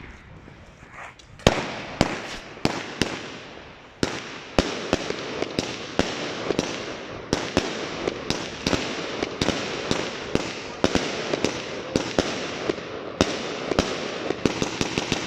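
A 25-shot, 30 mm consumer firework cake firing. The first loud shot comes about a second and a half in, then shots follow at roughly two a second, over a continuous noisy wash of bursting stars. It thins out near the end.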